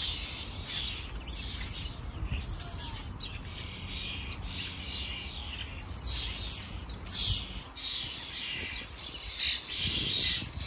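House sparrows chirping: a busy run of quick, overlapping chirps, with louder bursts about six and seven seconds in.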